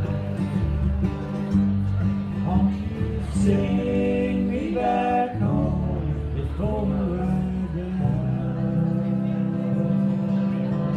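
Live acoustic country band playing: strummed acoustic guitar, upright bass and mandolin under sustained male vocals.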